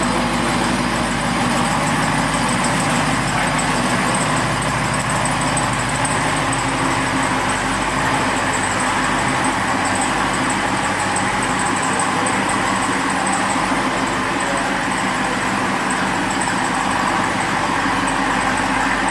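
Jeep Wrangler Rubicon 392's 6.4-litre HEMI V8 running steadily through its exhaust, with no revving.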